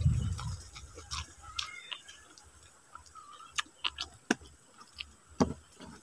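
Close-miked chewing of a mouthful of rice and vegetables, with scattered wet mouth clicks and smacks. A low rumble in the first second is the loudest part.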